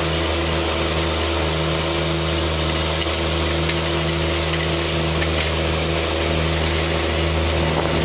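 Railway track vacuum-cleaning machine running with a steady, even mechanical drone.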